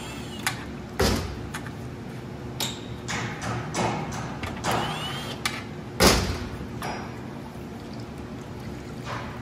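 Cordless impact driver run in short bursts on the fluid-pan bolts of a 6L90 automatic transmission, with metal knocks and clunks as the pan is worked loose; the loudest clunk comes about six seconds in.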